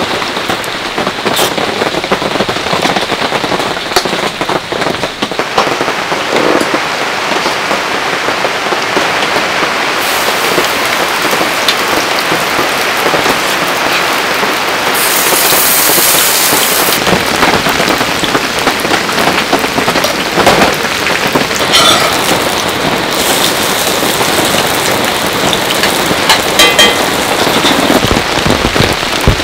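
Heavy rain falling steadily on the tent. About fifteen seconds in, a brief hiss of sizzling as chive-pancake batter goes into a hot cast-iron skillet.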